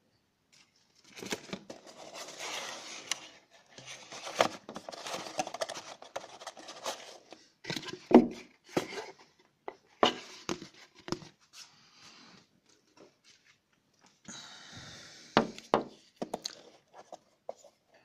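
Handling noise from a cardboard phone box and its packaging: rustling and scraping, broken by a series of sharp clicks and knocks from hard plastic parts.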